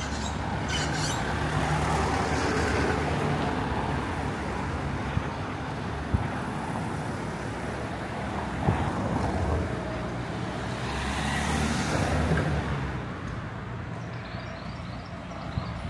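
Road traffic going by in a town street, with cars passing; one vehicle passes louder about eleven to thirteen seconds in, and there are a few short knocks.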